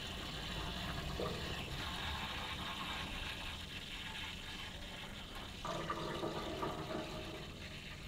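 Water draining under pressure from the drain point of a Baxi 600 combi boiler through a hose, a steady rushing hiss that slowly eases as the boiler's pressure is discharged.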